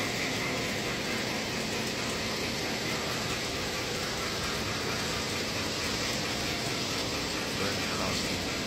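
Model train running on a shelf layout: a steady rolling noise with no distinct chuffs, whistles or clicks.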